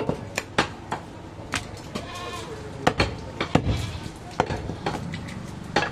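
A large butcher's knife knocking sharply and irregularly against a wooden chopping block as goat meat is cut, about a dozen strikes. A goat bleats once, briefly, about two seconds in.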